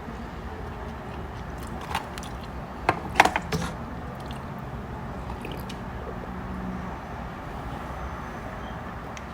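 A person chewing a mouthful of chicken nugget over a steady low background hum, with a short cluster of sharp clicks about three seconds in.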